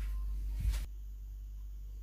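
Steady low electrical hum with a soft low thud about two-thirds of a second in; the hum drops slightly in level just after.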